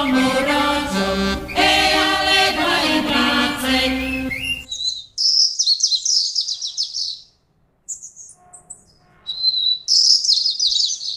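A group of voices singing a folk song with music stops abruptly about halfway through. Then a small songbird sings two quick phrases of high twittering, with a few single chirps between them.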